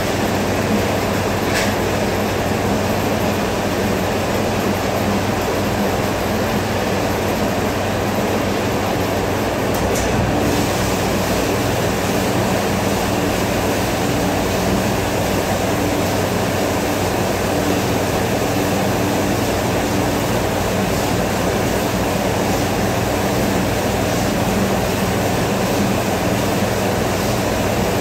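Steady mechanical rumble with a low hum from commercial dish-room machinery, running without change, with a faint click or two.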